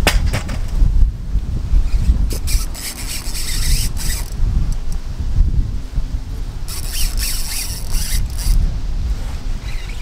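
Wind buffeting the microphone in a steady low rumble, with two stretches of rustling and scraping, one about two seconds in and one about seven seconds in.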